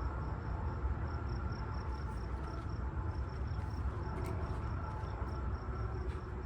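Insects chirping, a steady train of short high-pitched pulses about four a second, over a constant low rumble.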